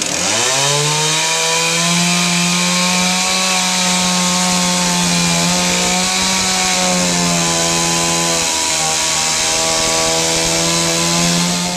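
Small two-stroke chainsaw revving up to full throttle and cutting through timber, its pitch sagging briefly under load about halfway through and again near the end.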